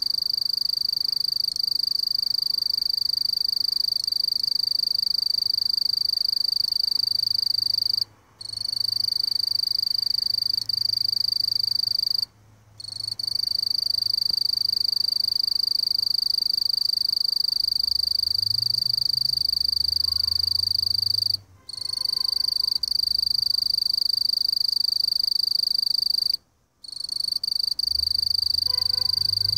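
Mottled bush cricket (Eurepa marginipennis) singing a continuous high-pitched call, broken by four brief pauses of under half a second.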